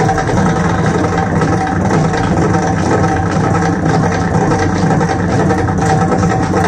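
Mridangam playing a thani avartanam (Carnatic percussion solo): a dense, fast run of drum strokes with deep bass tones, over a steady drone.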